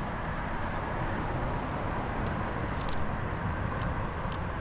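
Steady road traffic noise, a constant rushing hum, with a few faint high ticks in the middle.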